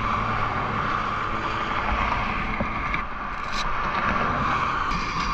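Honda CBR1000RR SP1's inline-four engine idling steadily with the bike standing still, under a steady rush of wind noise on the microphone.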